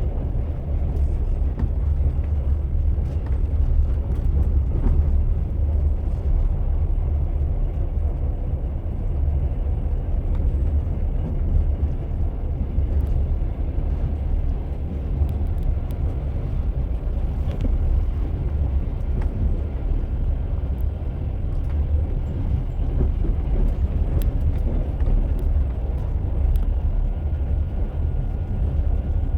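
Train wheels running on the rails: a steady low rumble with no clear break.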